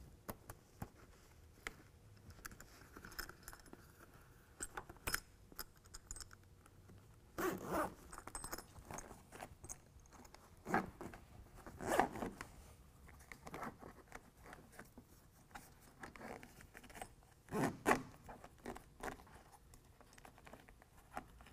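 Zipper on a Bestop fabric sport bar sleeve being zipped closed from the bottom up in a series of short pulls, with scrapes and clicks of the fabric and slider between them. The loudest pulls come about a third of the way in, around the middle, and near the end.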